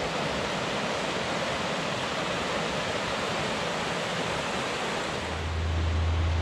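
Fast creek water rushing over rocks and through small rapids, a steady even rush of white water. About five seconds in, a steady low rumble joins it.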